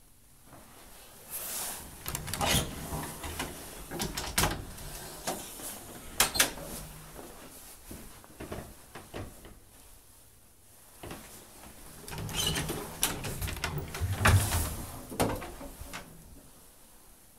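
Wooden cabinet and closet doors being opened and shut: a string of clicks, knocks and rattles in two bursts, one in the first half and one near the end.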